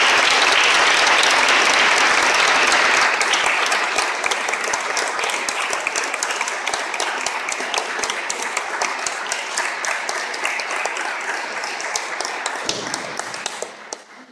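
Audience applauding, loudest for the first few seconds, then steadier and a little thinner before dying away near the end.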